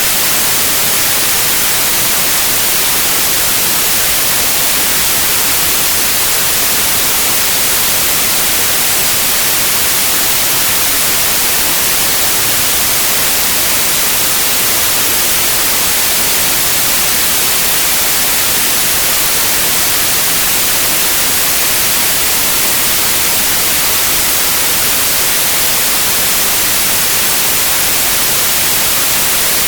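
Steady white noise: an even, unchanging hiss, brightest in the highest pitches.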